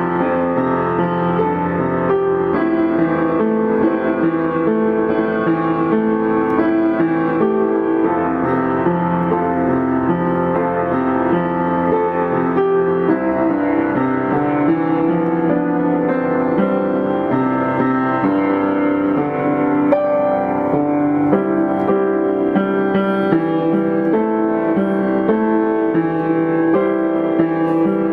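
Background piano music, a continuous flow of notes at a steady level.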